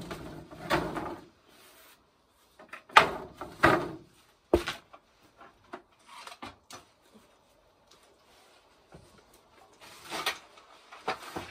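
Wooden pallet collars being handled and shifted: a string of separate wooden knocks and scrapes. The loudest come as a pair about three seconds in, followed by a sharp knock a second later, with another burst near the end.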